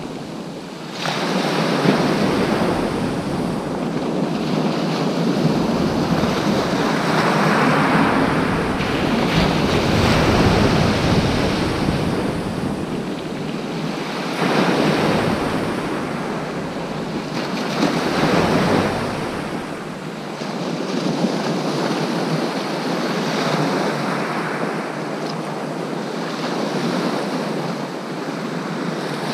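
Waves breaking on a shingle beach, surging in and easing off every few seconds, with wind buffeting the microphone.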